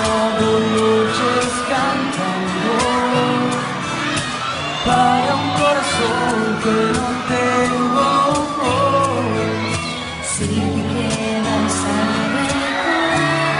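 Live pop song: amplified singing over instrumental backing with a steady beat, played through a concert hall's sound system.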